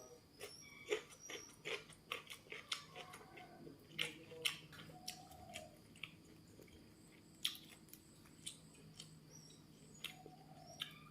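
A person chewing crunchy fried food close to the microphone: a run of crisp crunches, thick in the first half and sparser after.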